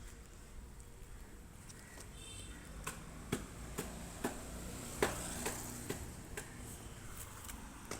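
A series of sharp, irregular clicks and taps, about a dozen, starting about three seconds in, over a faint low hum. A brief high chirp comes about two seconds in.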